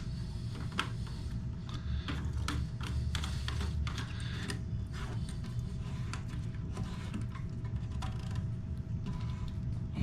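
Plastic lock nut being hand-threaded onto the shank of a toilet fill valve: irregular small plastic clicks and ticks over a low steady hum.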